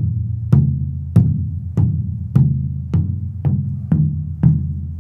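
The Evans resonant head of a 20-inch Rogers bass drum tapped with a felt mallet about every half second, nine times. Each tap gives a low note that rings on. The head is being checked for pitch during tuning and sits at about F2.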